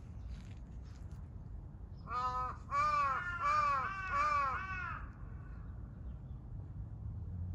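A crow cawing four times in quick succession, each caw rising and falling in pitch, about two seconds in.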